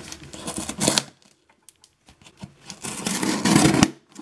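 Hands brushing and scraping over a cardboard shipping box and its paper label, with small clicks and taps. The handling comes in two spells, in the first second and again past the middle, with a near-quiet gap of about two seconds between.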